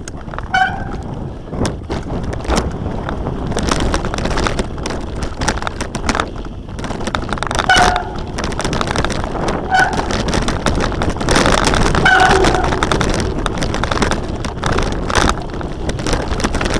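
Mountain bike ridden down a dirt singletrack, heard from a camera on the rider: steady wind noise on the microphone and tyre rumble, with constant rattling and clicking from the bike over the bumps and a few short squeaks.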